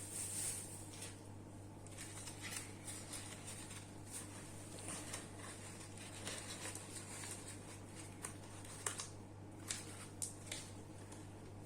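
Scattered light clicks and rustles of small parts being handled, with a few sharper ticks near the end, over a steady low hum.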